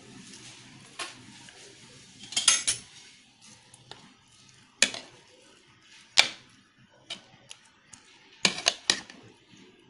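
Spoon knocking against the rim and side of a bowl of curd in scattered sharp clicks, with a quick cluster about two and a half seconds in, single loud knocks near five and six seconds, and another quick run of clicks near the end, as fried dahi vade are pushed down into the curd.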